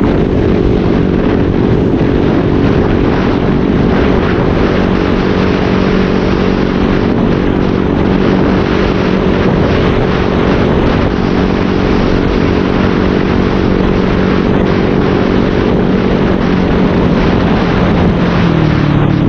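Motorcycle engine breathing through an SC Project aftermarket exhaust with a modified elbow, running at a steady speed under way, with wind rushing on the microphone. The engine note drops near the end as the revs come down.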